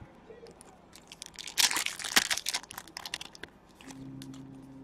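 Crinkling and tearing of a trading-card pack wrapper, densest around the middle, with scattered small clicks of cards being handled. A low steady hum comes in near the end.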